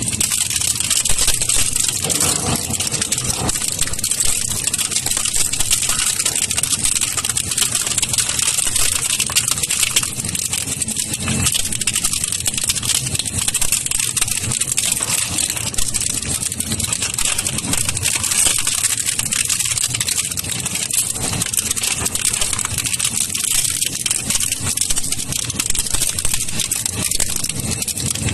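Model 600 double-shaft shredder running under load, its counter-rotating cutter shafts chewing through yellow plastic grid plate. The result is a steady machine din with a constant stream of cracks and rattles as the plastic breaks up.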